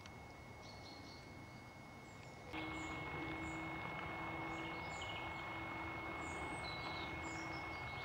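Outdoor ambience with small birds chirping now and then in short high calls. About two and a half seconds in, the background steps up and a steady low hum joins in.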